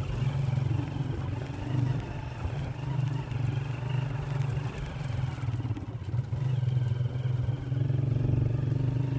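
Motorcycle engine running steadily at low speed, heard from on the bike, as it travels along a rough dirt track.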